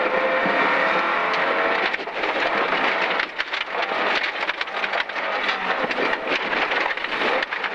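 Rally car's engine under hard acceleration, heard from inside the cabin, with brief dips in level around two and three seconds in. From about three seconds in, gravel rattles and pelts against the underbody.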